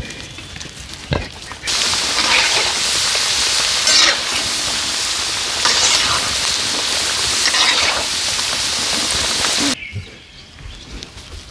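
Chunks of potato deep-frying in sunflower oil in a wide pan, a loud steady sizzle with a skimmer moving through it. The sizzle starts and stops abruptly, about two seconds in and again near the end, with quieter outdoor sound and a few short pig grunts on either side.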